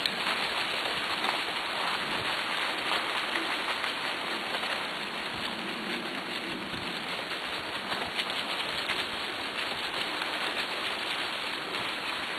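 Steady rustling and crackling of a sled-dog team's paws and a dryland rig's wheels running over a leaf-covered path.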